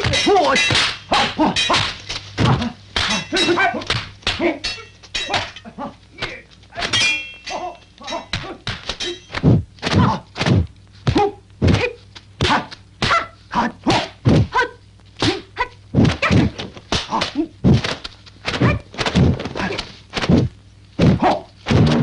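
Dubbed kung fu fight sound effects: dozens of sharp punch and kick impacts in quick, uneven succession, denser at first and then about two a second, with a few short shouts.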